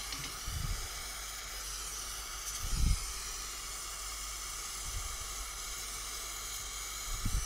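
Gas torch flame hissing steadily as it heats a copper-to-aluminium tube joint for brazing. A few dull low thumps come through, the loudest about three seconds in.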